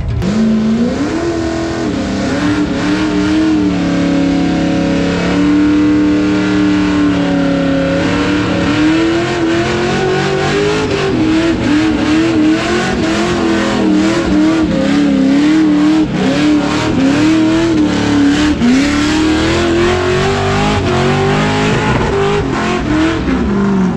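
A car doing a burnout: its engine is revved hard and held high, the pitch wavering up and down as the throttle is worked, over the hiss of rear tyres spinning on the pad. The revs settle briefly a few seconds in, then climb again.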